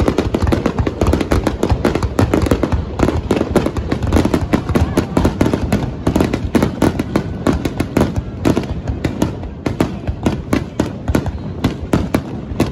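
A dense barrage of aerial firework shells bursting, with rapid, overlapping bangs and crackles that start suddenly and keep up without a break.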